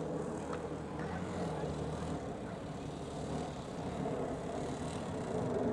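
ATV (quad bike) engine running steadily as the quad is ridden.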